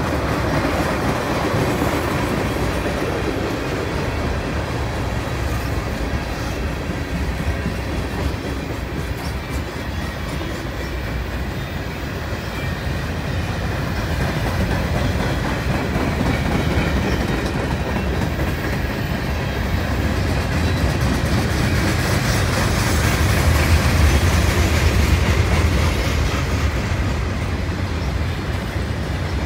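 Freight train tank cars and then gondola cars rolling past on steel rails, a steady rumble with wheels clacking over the track, swelling slightly about three quarters of the way through.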